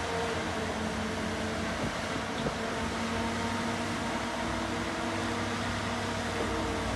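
Boatyard travel lift's engine running steadily, a constant-pitched mechanical hum.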